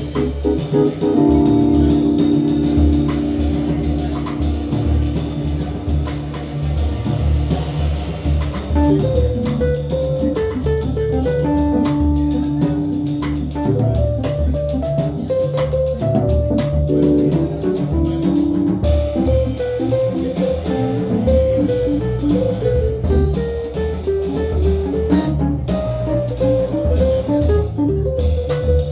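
Jazz trio of keyboard, double bass and drum kit playing live. About a second in the keyboard holds chords for several seconds, then plays a single-note line over steady bass notes, with the drums keeping time on cymbals and drums.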